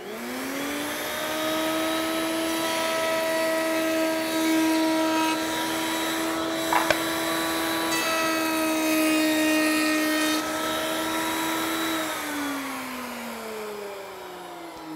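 Table-mounted router starting up and rising to a steady high whine, with the sound of its roundover bit cutting a board's edge partway through. About twelve seconds in it is switched off and the whine falls in pitch as the motor spins down.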